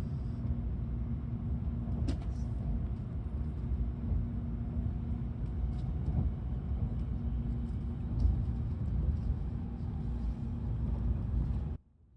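Steady low rumble of a Tokaido Shinkansen train running, heard inside the passenger cabin, with a faint steady hum and a few light clicks. It cuts off abruptly near the end.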